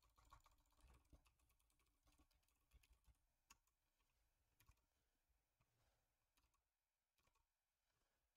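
Faint, irregular keystrokes on a computer keyboard, with gaps between them. Otherwise near silence.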